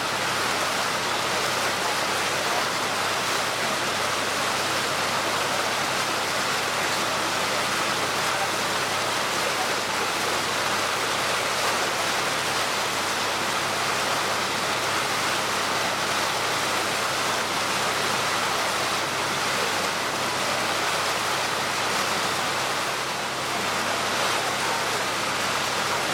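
Steady rushing of water with a faint low engine hum underneath, as from a small ferry boat under way on the lake.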